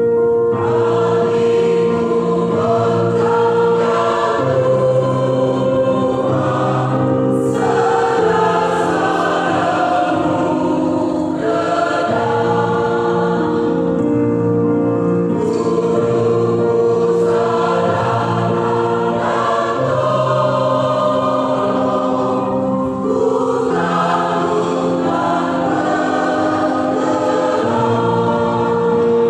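Church choir singing a hymn in harmony, in long held phrases with a steady, full sound.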